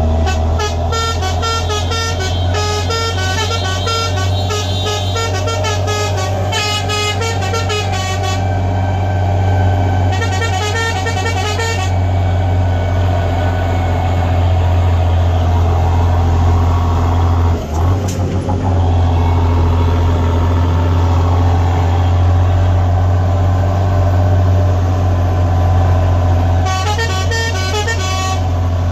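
Truck's musical multi-note horn played as a tune, its notes stepping from pitch to pitch for the first eight seconds or so, again briefly around ten seconds in and near the end. Under it the truck's engine gives a steady low drone, heard from inside the cab.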